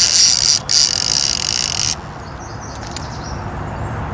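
A fishing reel's clicker buzzing as line pays out, in two runs with a brief break about half a second in, stopping about two seconds in. A low steady hum from the boat's motor runs underneath.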